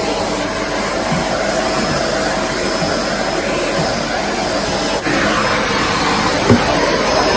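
A Kmart 2000 W vacuum cleaner runs steadily while its floor head is pushed over carpet.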